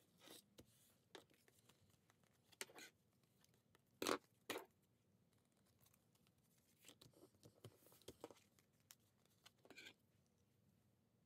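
Quiet desk handling: a tissue rubbed over a paper notebook cover, then the notebook and a pair of scissors moved about on a wooden desk. Two sharp knocks about four seconds in are the loudest sounds.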